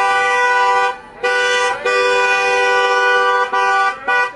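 Car horns honking in a string of about five blasts, some long and some short, each cutting off sharply.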